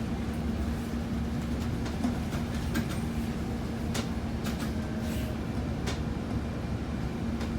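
Inside a moving city bus: a steady low engine and road rumble with a constant hum, and a few sharp rattles and clicks scattered through it.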